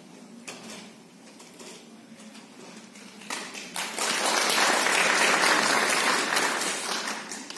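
Audience applauding, with a few scattered claps at first, then full applause starting about three seconds in and tapering off near the end.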